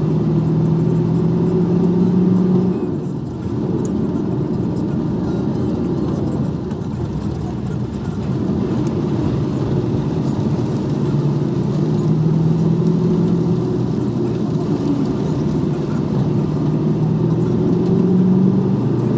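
Truck's diesel engine running as it drives, over steady road noise. The engine note climbs, drops briefly about three seconds in, then climbs again twice later.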